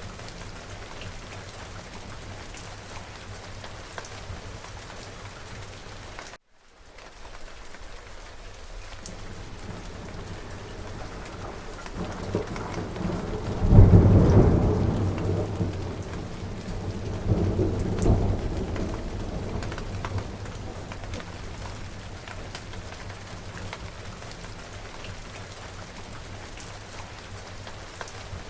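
Steady rain with a thunderstorm. The rain cuts out for a moment early on and fades back in. About halfway through, a loud clap of thunder rumbles on, swells again a few seconds later and dies away under the rain.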